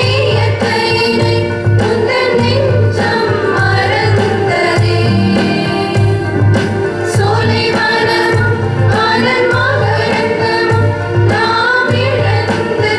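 A group of singers performing a song together over instrumental accompaniment with a steady low bass.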